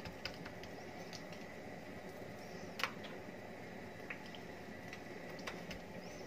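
Oiled hands pressing and patting msemen dough flat on a stone countertop: soft squishing with scattered light taps, and one sharper click about three seconds in.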